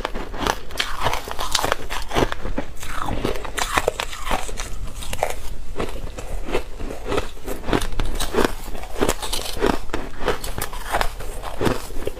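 Crushed ice being bitten and chewed close to a lapel microphone: a dense, irregular run of crisp crunches, several a second, as each mouthful of ice breaks up.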